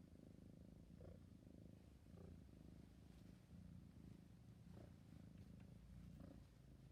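Kitten purring, a faint, continuous low rumble.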